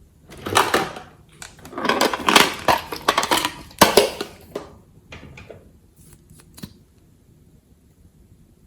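Glossy slime being squeezed and worked by hand: a string of crackly, clicking squelches with a sharp click just before the middle, then a few faint clicks.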